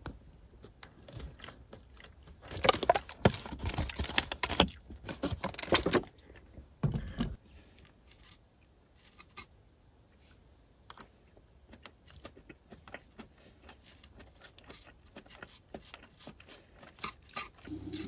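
A person chewing and crunching food close up. The crunching is loudest for about three seconds starting a few seconds in, comes again briefly around seven seconds, then dies down to faint clicks.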